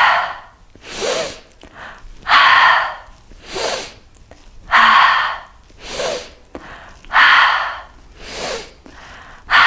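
A woman taking slow, deep yoga breaths in and out at a steady pace, about four full breaths, louder and softer breaths alternating.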